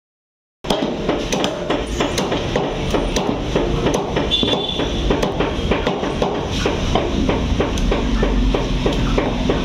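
Steel cleaver chopping raw chicken on a wooden log chopping block: repeated sharp knocks, a few a second, over steady background noise. The sound starts about half a second in.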